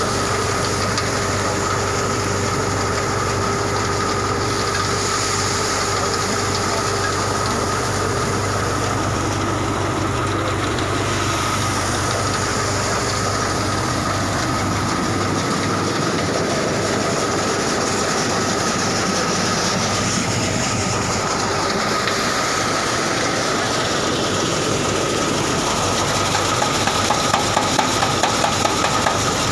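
Grain thresher running with a steady mechanical rattle and clatter and a steady whine. Near the end comes a quick run of louder knocks, about three a second.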